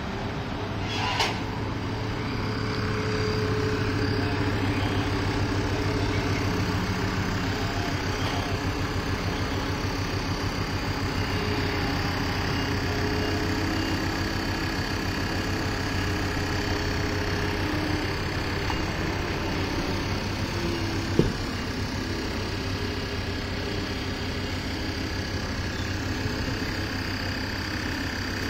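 Heavy diesel road-resurfacing machinery, among it an asphalt milling machine, running steadily with a low drone and constant mechanical noise. A sharp click comes about a second in and a louder knock about 21 seconds in.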